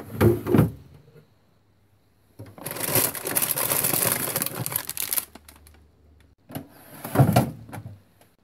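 Handling noises: two knocks at the start, about three seconds of rustling in the middle, and another cluster of knocks near the end.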